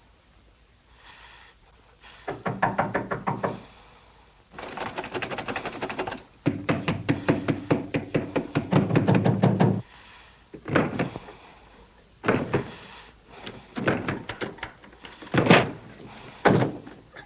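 Fast, heavy pounding on a locked wooden door, in three long runs, then a handful of single heavy blows as the door is forced. The loudest blow comes near the end, as the door bursts open.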